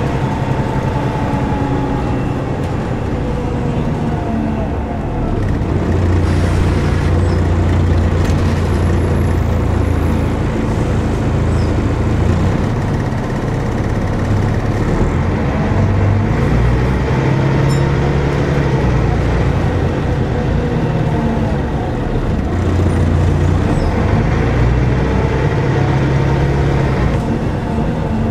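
Volvo B10BLE single-deck bus heard from inside the saloon: its rear-mounted six-cylinder diesel engine running as the bus drives, the engine note rising and falling several times.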